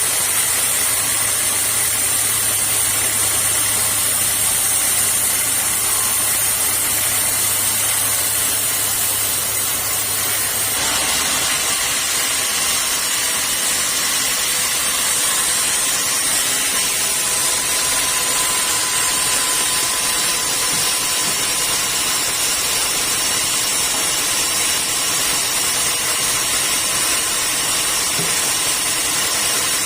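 Sawmill machinery running steadily: a continuous mechanical hiss with a low hum that stops about eleven seconds in.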